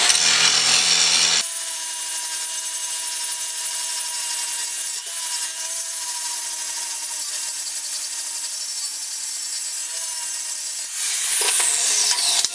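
7-inch angle grinder grinding a collar off tool-steel drill rod: a steady, loud grinding hiss over a constant motor whine. Near the end the pitch falls away.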